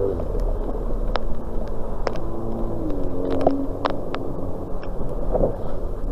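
A motor vehicle's engine running steadily: a low rumble with a faint engine tone that shifts in pitch about halfway through, and several sharp clicks scattered through it.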